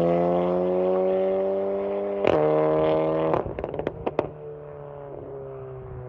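Volkswagen Golf 7.5 R's turbocharged four-cylinder, on a stage 2 tune with a full aftermarket exhaust, accelerating away with its note slowly rising. There is a short crack about two seconds in and a quick string of sharp pops at about three and a half seconds as the throttle lifts, then the engine fades into the distance.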